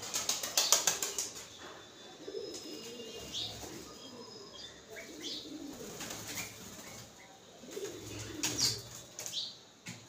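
Wings of small birds (house sparrows and red-vented bulbuls) flapping in a quick flurry about half a second in as they take off and land at a feeding table, and again near the end, with short high chirps scattered in between.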